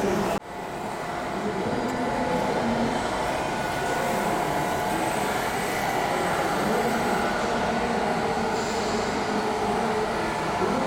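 A steady mechanical rumble with a faint hum, which drops out abruptly for a moment about half a second in and then comes back.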